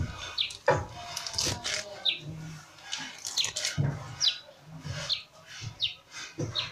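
Kitchen knife cutting spinach leaves on a plastic cutting board in short uneven strokes and taps, with a small bird chirping repeatedly in the background, a short high call about once a second.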